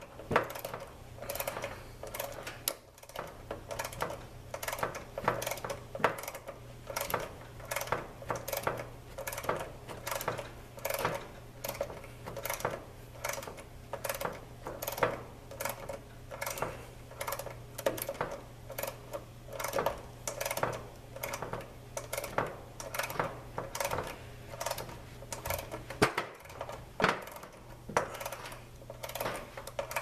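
Ratcheting refrigeration service wrench clicking steadily, about two clicks a second, as it turns the suction line service valve stem of an air-conditioner condensing unit closed for a refrigerant pump down.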